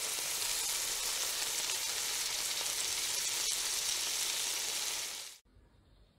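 A steady, even hiss that cuts off suddenly about five seconds in, leaving only faint room tone.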